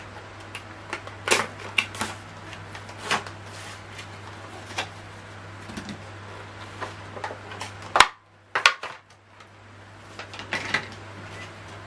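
Irregular clicks and taps of a Leatherman Wingman multi-tool being handled, over a steady low hum. A loud click about eight seconds in, after which the hum briefly drops out.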